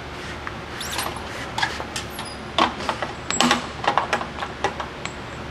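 Irregular metal clinks and clanks, a dozen or so from about a second in until near the end, as the new wheel hub, its shield and bolts are handled and set in place.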